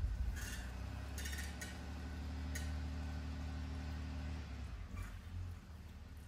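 A low steady mechanical hum that stops about four and a half seconds in, with a few sharp clinks over it.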